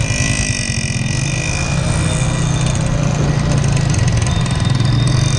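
Motorcycle engine running at low speed, a rapid steady low pulsing that grows a little louder near the end.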